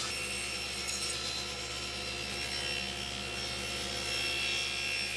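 Table saw running with a steady whine, its blade cutting through hardwood; the hiss of the cut grows brighter about four seconds in.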